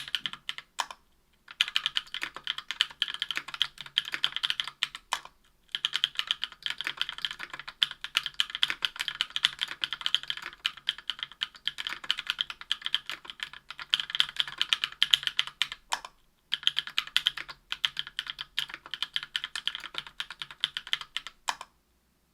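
Typing on a Tofu 60% aluminium-case keyboard with an aluminium plate, lubed Durock Cherry Blossom 65 g linear switches and GMK keycaps: a dense run of keystrokes with a few short pauses, stopping just before the end.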